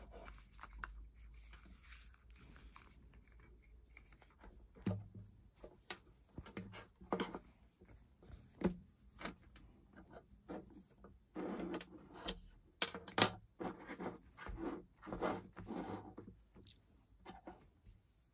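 A plastic headset and its braided cable being handled and set down on a table: scattered light clicks and knocks with bursts of rustling, busiest in the second half.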